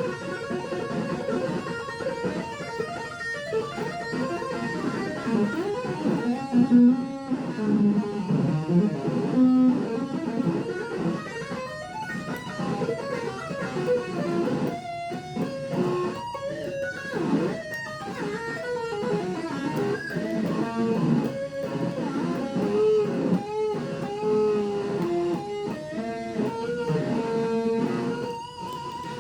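Ibanez RG electric guitar played through a Zoom G3Xn multi-effects unit: a melodic line of single notes, some held and some bent in pitch.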